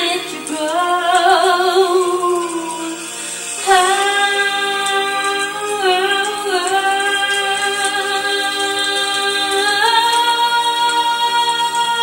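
Female vocal singing, a short phrase followed by one long held note that steps up in pitch near the end.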